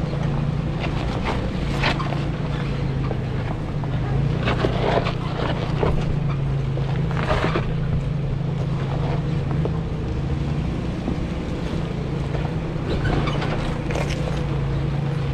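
An off-road SUV's engine runs steadily at low revs while crawling over rocks. Scattered crunches and knocks of tyres on rock come through several times.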